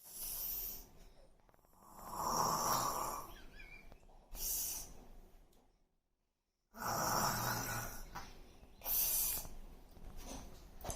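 A little girl snoring in her sleep: a rough snore and breathy hisses repeating every couple of seconds, with a brief complete dropout about six seconds in.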